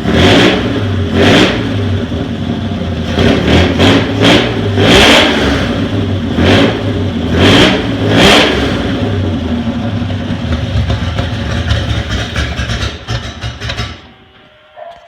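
Chevy 250 inline-six engine in a 1947 doodlebug skidder, revved in repeated short blips, then running more steadily, and stopping about a second before the end.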